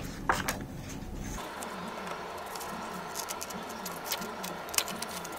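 Paper rustling as a sheet of white chart paper is handled, then a few sharp scissor snips, scattered and irregular, as small paper circles are cut out.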